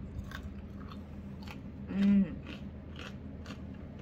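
A galah's beak crunching and clicking on food, a string of small sharp clicks every third to half second. About halfway through comes a short low hummed note, the loudest sound.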